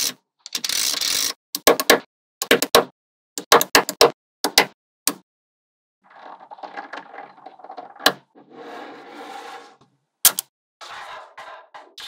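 Small magnetic balls clicking sharply as they snap together, in quick clusters over the first five seconds. This is followed by a softer, longer rattle of balls moving against one another, with a few more clicks near the end.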